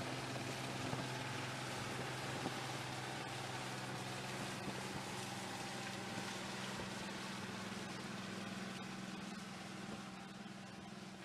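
A harbour tug's diesel engine running with a steady hum, over the rush of water along its hull and bow wave.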